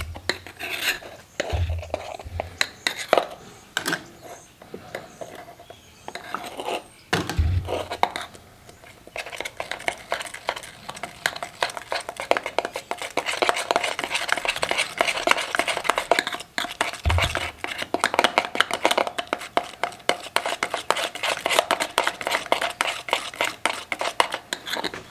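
A utensil stirring and scraping around a container, mixing graphite and molybdenum powder with dish soap into forge lube paste: rapid clicking scrapes that grow denser and steadier about a third of the way in, with a few low bumps.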